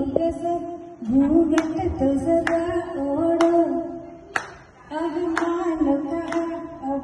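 A woman singing into a handheld microphone, amplified through a loudspeaker, with a sharp clap or beat keeping time about once a second. She breaks off briefly about four and a half seconds in.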